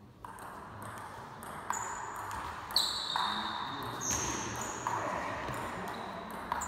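Table tennis rally: the ball clicking off the paddles and the table in turn, about seven hits, some followed by a short high ping, echoing in a large hall.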